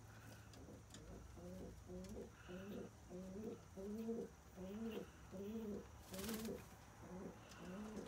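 Domestic pigeons cooing: a steady string of low coos, about one and a half a second, each rising and falling in pitch. A short burst of noise sounds about six seconds in.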